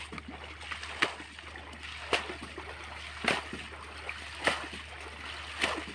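Muddy ditch water being bailed out by hand with a pot: five even splashes, a little over a second apart.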